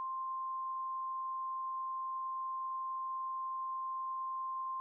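Emergency alert attention tone: one steady, unbroken electronic tone at a single pitch, as sounded between messages of an Emergency Alert System broadcast.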